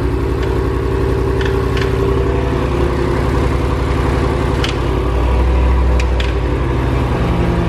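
Dodge Challenger Hellcat's supercharged 6.2-litre HEMI V8 running steadily at idle, with a few sharp ticks standing out over the engine note. This is the strange noise the owner is chasing, which he likens to valve chatter.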